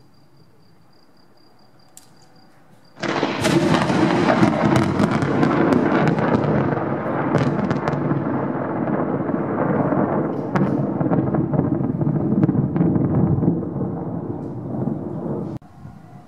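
Thunder: a loud peal breaks suddenly about three seconds in, crackling and then rumbling for about twelve seconds while its hiss slowly fades, before cutting off abruptly near the end.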